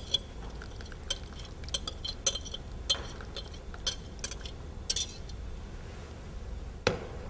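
A metal wire whisk clinking against a glass jug and a copper saucepan in irregular light clinks while the egg-yolk and cream mixture for crème anglaise is poured back into the pan and whisked, with a last clink near the end.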